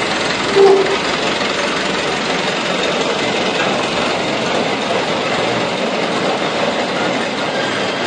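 A palletised stack of crated rice reapers being pushed across the floor of a steel shipping container: a steady rolling rumble and rattle, with a brief squeal about half a second in.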